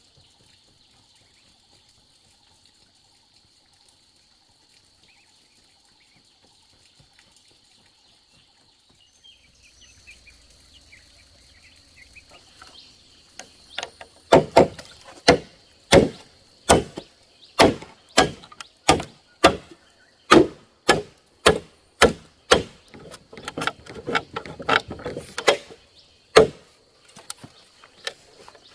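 Chopping blows on wood, about two a second, starting about halfway through and stopping shortly before the end. The first half holds only a steady high-pitched whine.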